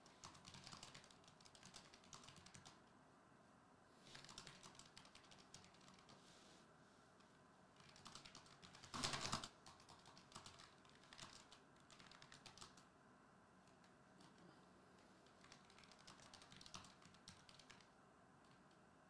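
Faint typing on a computer keyboard: bursts of key clicks a second or three long, with short pauses between, and a louder burst about nine seconds in.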